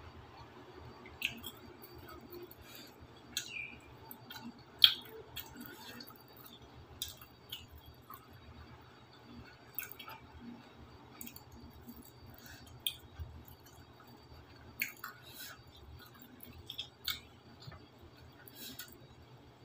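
Eating by hand: irregular small clicks and taps of fingers and food against a plate, with quiet chewing. One sharper click about five seconds in.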